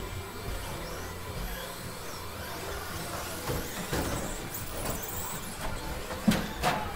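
Electric 13.5-class stadium RC trucks racing around an indoor carpet track: a steady mix of motor and tyre noise in a large hall, with one sharp knock about six seconds in.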